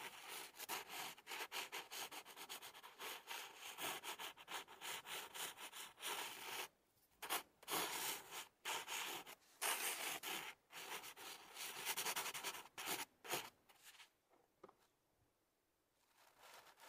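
Pencil drawing on paper: quick back-and-forth scratchy strokes, dense for about six seconds, then separate strokes with short pauses, fading to a few faint sounds near the end.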